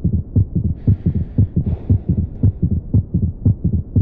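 Heart sounds heard through a stethoscope: a rapid, regular run of low thuds, about two beats a second. It is an example of a third heart sound (S3) in early diastole, pathological in heart failure or mitral regurgitation.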